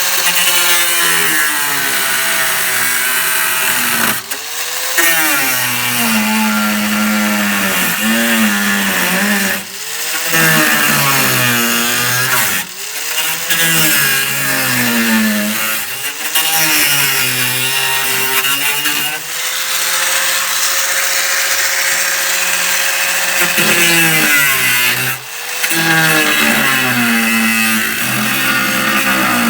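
A power cutoff tool cutting a sheet-metal lip off a car's floor pan. Its whine drops in pitch each time the wheel bites into the metal and climbs back as it frees up, with a hiss of cutting throughout and several short stops where the trigger is let off.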